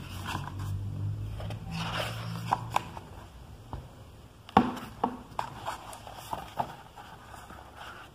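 A hardcover book being handled and its thick paper pages turned: rustling and scraping, with a string of sharp taps and clicks in the second half, the loudest a little past the middle.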